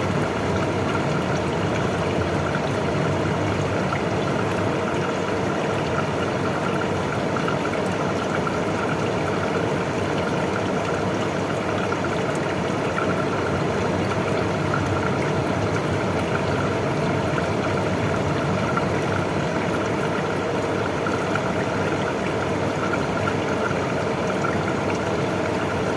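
Air cooler blowing steadily: a constant, unchanging rush of fan noise.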